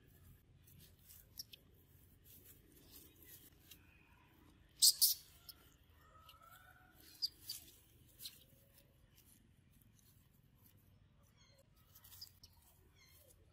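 Scattered rustles and crackles of dry leaves as a macaque mother shifts and moves about with her baby clinging to her. The loudest is a short crackling burst about five seconds in. A few faint chirps come in between.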